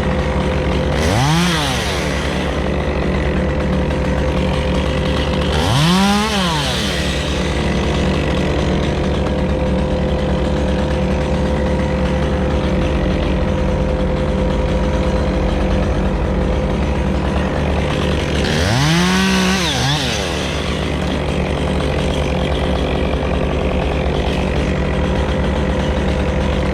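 Stihl chainsaw running, revved up and let back down three times, with steady running in between.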